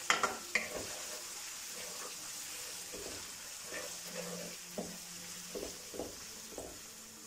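Browned onions and crushed ginger-garlic sizzling in oil in a metal karahi, frying off the raw garlic smell. A wooden spoon stirs them, with a few scrapes and knocks against the pan. The steady sizzle slowly fades.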